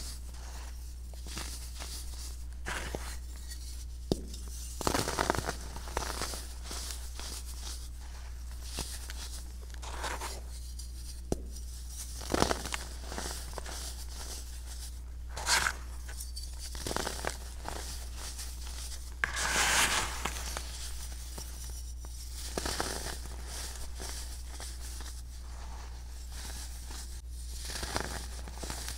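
Hands crushing and crumbling chunks of set baking soda into loose powder: soft, irregular crunches and gritty crumbling, with a few sharper crunches and a longer crumble about twenty seconds in.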